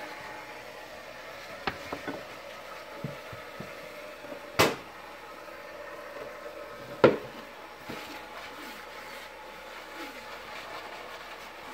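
A few knocks and clunks as a plastic cutting board is set down and shifted on a rag over a tiled counter: small clicks first, then two sharp knocks about two and a half seconds apart near the middle, the second the loudest, over a faint steady hum.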